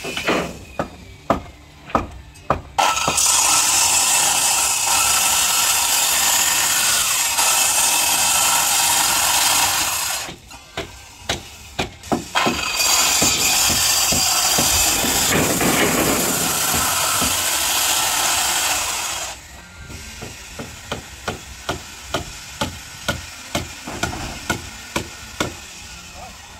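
Handheld electric circular saw cutting into thick wooden boat timber in two long runs of about seven seconds each. Sharp hammer blows, about two a second, on a chisel come before, between and after the cuts.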